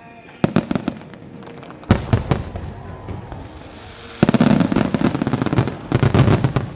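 Starmine fireworks barrage: aerial shells bursting in quick clusters of bangs with a rumbling echo between them. The volleys grow denser and louder in the second half, with two rapid crackling runs of bursts.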